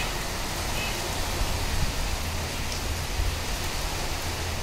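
Steady rain with gusty wind, the wind rumbling low on the microphone.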